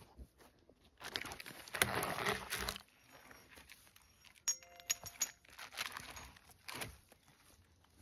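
Rustling and crunching in dry pine needles and brush, loudest for about two seconds early on, then light metallic clinks and jangles from a steel winch cable and choker being handled and set around a log.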